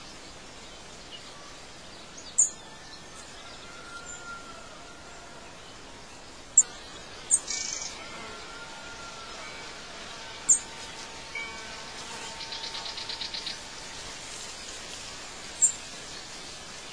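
Birds chirping over a steady outdoor hiss: short, sharp, high-pitched chirps every few seconds, a few faint whistled notes, and a fast trill of about ten notes a second about three quarters of the way in.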